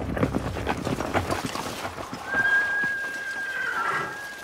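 Radio-drama sound effect of several horses galloping, the hoofbeats fading out about two seconds in. A long, steady high tone follows and is held to the end.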